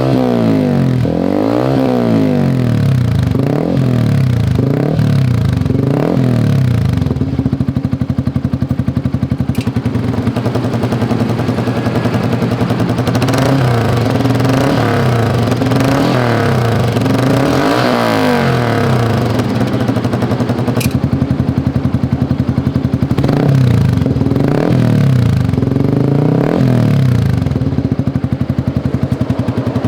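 Small-displacement motorcycle engine breathing through a 3Tech EvoX ADB aftermarket exhaust with its valve fully open, blipped repeatedly: quick revs rising and falling, settling back to idle between bursts.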